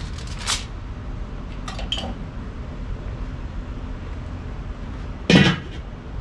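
A few light metallic clinks, then the enamelled steel lid of a Weber charcoal kettle grill set back on the bowl with one loud clank about five seconds in.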